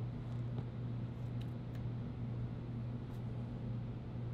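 A steady low hum runs underneath a few faint clicks and light handling sounds as a phone is lifted out of its snug cardboard box and picked up in the hand.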